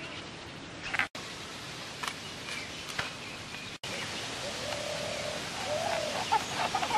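Rural outdoor ambience: a steady hiss with bird calls, a held call in the middle and short chirps in the last couple of seconds, plus a few light clicks about a second apart in the first three seconds. The sound cuts out to silence twice, very briefly.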